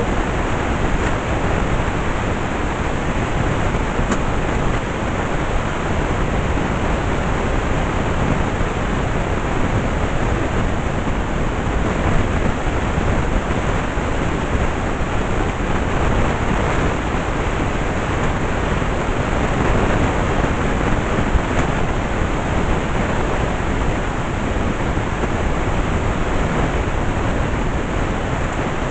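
Vacuum cleaner running steadily, a continuous even roar with no change in pitch or level.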